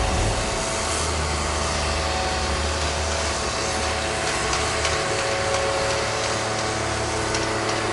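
Dairy barn machinery running steadily: a constant low hum with a thin, higher whine on top.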